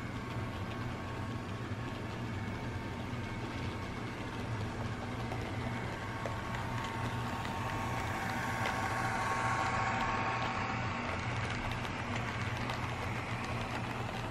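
HO scale model diesel locomotive and freight cars running past on the track, the small motor and wheels making a steady mechanical hum that grows louder as the locomotive passes, about nine seconds in.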